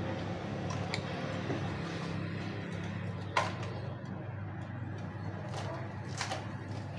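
Handling of a white rolling pin wrapped in plastic: a few light clicks and rustles, with one sharper knock about halfway through, over a steady low hum.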